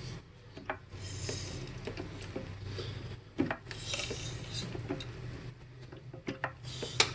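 Hydraulic floor jack being pumped, lifting a car: rasping, rubbing strokes about every three seconds with scattered light clicks, the sharpest near the end.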